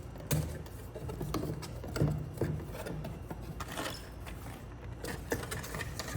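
Quick-release parts and packaging being handled and packed back into their box: irregular rustles, clicks and light knocks.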